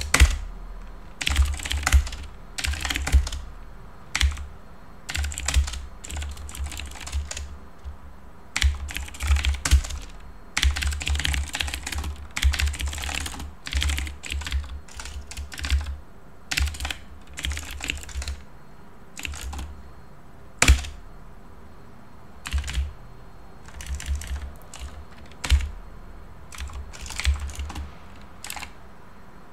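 Typing on a computer keyboard: bursts of quick key clicks broken by short pauses, with one single louder key strike about two-thirds of the way through.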